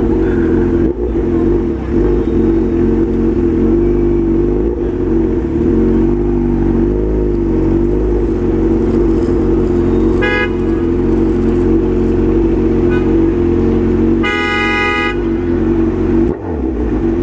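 Honda CB1000 motorcycle's inline-four engine running steadily through a straight exhaust pipe. A car horn toots briefly about ten seconds in, and another horn sounds for about a second near the end.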